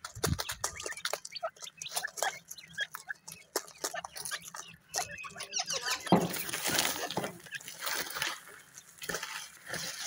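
Francolin (teetar) chicks pecking and scratching on cardboard and grit: many short taps and clicks, with a louder rustling flutter of wings about six seconds in.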